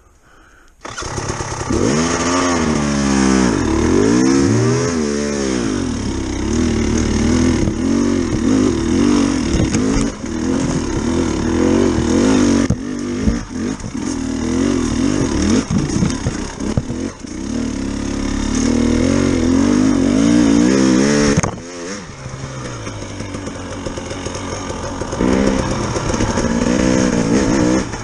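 Off-road dirt bike engine running under load, its pitch rising and falling with the throttle. It comes in abruptly about a second in, drops off suddenly about 21 seconds in, then picks back up near the end.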